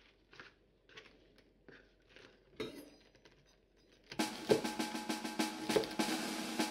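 Faint rustles and light taps of fresh wasabi leaves and stalks being handled on a plastic cutting board. About four seconds in, loud background music with drums comes in and covers them.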